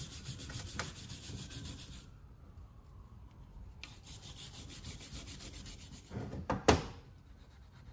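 Steel wool scrubbing the copper commutator of a classic VW generator armature in quick back-and-forth strokes. The strokes pause about two seconds in, then start again. A single loud knock comes near the end.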